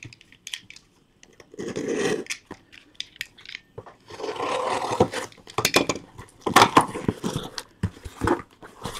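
Cardboard case of trading-card boxes being opened by hand: cardboard scraping and rubbing in two longer stretches, about two seconds in and again from about four to five seconds, with scattered knocks and clicks.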